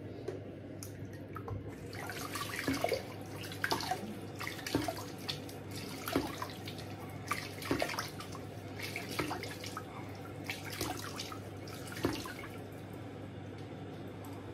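Splashing at a bathroom sink as a man wets his face with tap water, with a splash every second or so, stopping about twelve seconds in.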